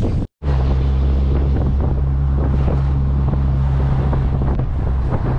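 Engine of a small open-top SUV running steadily at cruising speed, a low even drone, with wind buffeting the microphone; a split-second gap in the sound comes just after the start.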